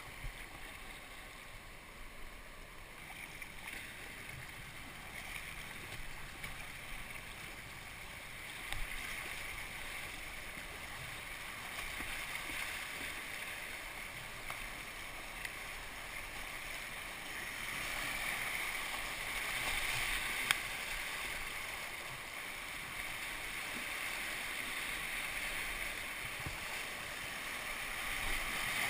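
Rushing whitewater of a river rapid heard from a kayak, getting louder as the boat runs into the rapid. A few sharp splashes from paddle strokes break through it.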